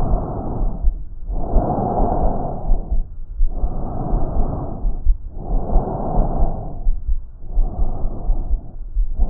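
Normal tracheobronchial breath sound heard through a stethoscope: harsh rushing of air through the trachea in both breathing phases, each phase about a second and a half long with a clear pause between them, over low regular thuds.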